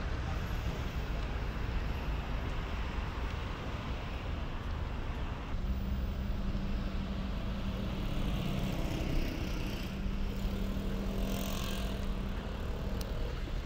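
City street traffic: cars running and passing on a multi-lane road, with a steady low engine hum that sets in about halfway through and a passing hiss near the end.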